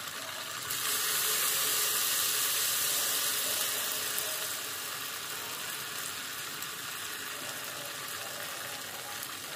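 Ghevar batter frying in hot oil in a pan, a steady sizzling hiss that grows louder about a second in, then slowly eases off.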